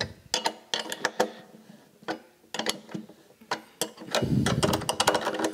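Ratchet wrench clicking in short runs as a bolt is tightened down, with a louder, denser run about four seconds in.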